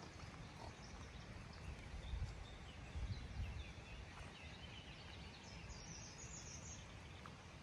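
Faint outdoor ambience: wind rumbling on the microphone, louder in gusts about two and three seconds in, with scattered small bird chirps.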